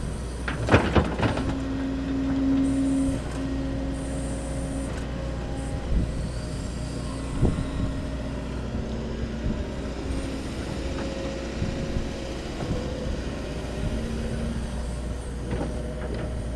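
Link-Belt excavator working in sand: a steady engine drone with a hydraulic tone that swells and fades, and a few knocks from the bucket.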